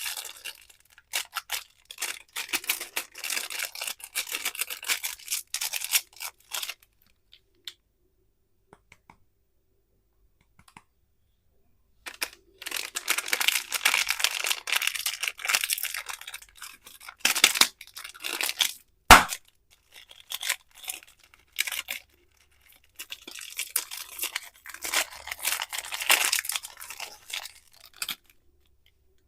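Plastic candy wrappers crinkling and tearing as they are handled and opened, in three spells with silent pauses between them. A single sharp click stands out just after the middle spell.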